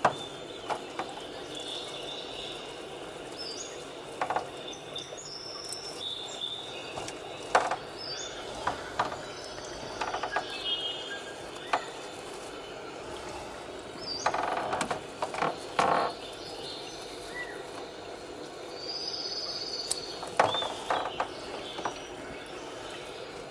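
Small scissors snipping terrarium plant stems and leaves: scattered short clicks, with a burst of leaf rustling a little past the middle. Faint high chirps come and go over a steady low hiss.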